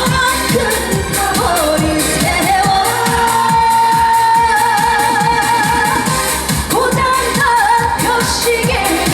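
Live trot singing: a woman sings over amplified backing music with a steady dance beat, holding one long note with vibrato through the middle.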